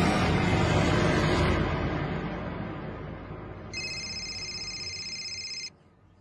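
Dark background score fading out over the first few seconds, then a mobile phone ringing with a high electronic ring tone for about two seconds that cuts off suddenly.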